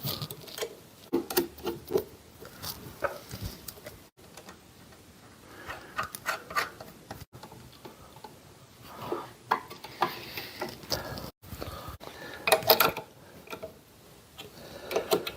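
Bolts being fitted and tightened by hand to mount an electric motor on a drill press: scattered metal clicks, scrapes and rubbing, broken by a few abrupt cuts.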